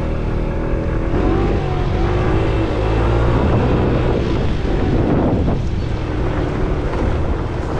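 50cc petrol scooter engine running under load, its pitch rising and falling as the throttle varies, with wind buffeting the microphone.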